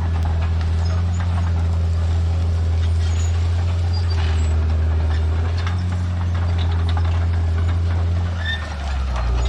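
Bulldozer's diesel engine running steadily under load with a deep drone. It eases off briefly near the end, then picks up again.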